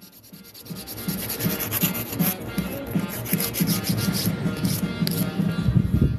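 Narrow Twiggy nail file scraping back and forth along the sidewalls of a gel nail tip in rapid short strokes, filing the sides sharp.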